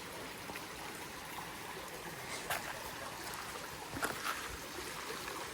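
A small woodland stream trickling over rocks: a steady water sound, with a couple of faint clicks about two and a half and four seconds in.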